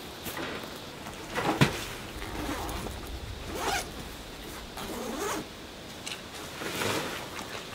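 A thump about a second and a half in as a nylon backpack is set down on a metal mesh table, then the backpack's zipper is pulled open in three long strokes.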